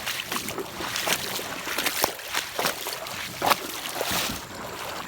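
Water splashing and sloshing in a shallow river in a run of quick, irregular splashes, the loudest about three and a half seconds in.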